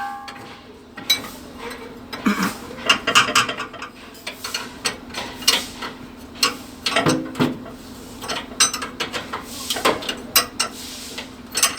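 Irregular clinking and clattering of small hard objects, a string of sharp clicks and knocks, over a faint steady low hum.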